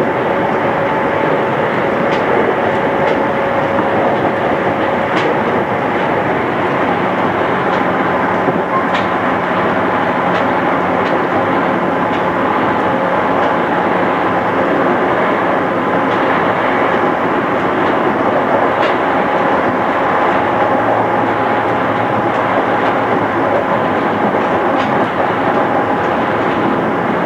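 JR East 211 series electric train running steadily, a dense rumble of wheels and running gear with faint rail-joint clicks and a thin motor or gear whine that shifts pitch during the run, heard from inside the car on a cassette-tape recording.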